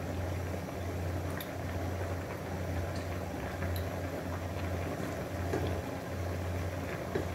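Rice and masala bubbling at a boil in a shallow non-stick pan, with a slotted spatula stirring through it, over a low hum that swells and fades about once a second. The rice is cooking in its water, before it is set to steam.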